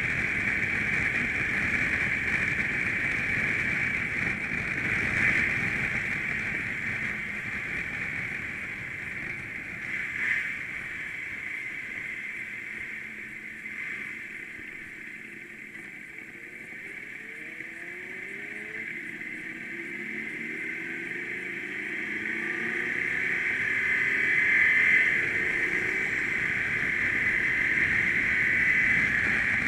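Motorcycle riding, heard from the rider's seat: engine and wind noise throughout, easing off and quieter in the middle, then the engine pitch rising again as the bike accelerates toward the end.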